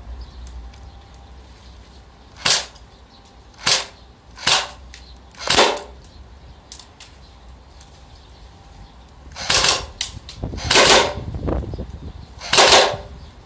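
Airsoft G36C electric gun, powered by a 1200 mAh RC battery, firing seven separate sharp shots: four in quick succession, then a pause, then three more.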